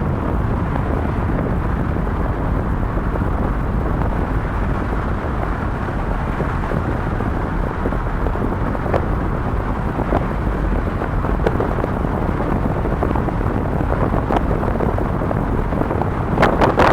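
Strong wind buffeting the microphone, a steady low rumbling roar. A few faint clicks come through it, and a louder crackling burst comes near the end.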